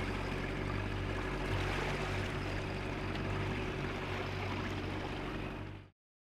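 Boat motor running steadily under a constant rush of water, with a low hum; it cuts off suddenly near the end.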